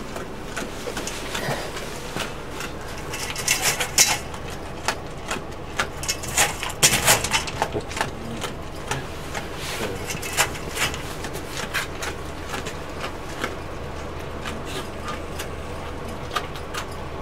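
A starved, ravenous sled dog eating from a bowl: irregular clicks and clatters of chewing and the bowl, thickest in two bunches in the first half, over a steady low hum.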